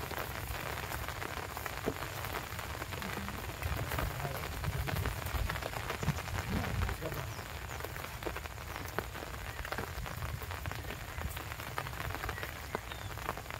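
Steady rain falling, thick with small drop impacts, over a low rumble.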